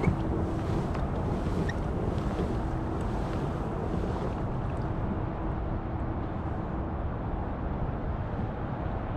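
Steady road noise from a major highway carrying over a river, a low rushing wash with a faint steady hum that fades out about seven seconds in, mixed with wind on the microphone.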